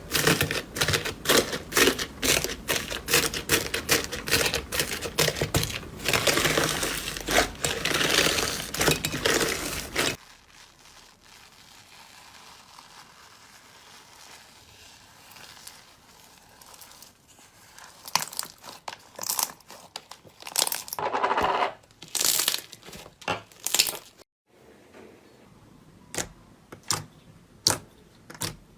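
Slime being squeezed and poked by hand, making dense, rapid crackling and clicking for about the first ten seconds. It then drops abruptly to a much quieter stretch of scattered clicks and short crackles.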